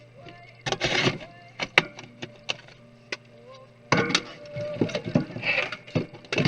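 Plastic parts of a Dell Inspiron 15 3567 laptop being pried and handled during disassembly: sharp clicks and short bursts of scraping and rattling, in two clusters, one about a second in and a longer one from about four to six seconds in.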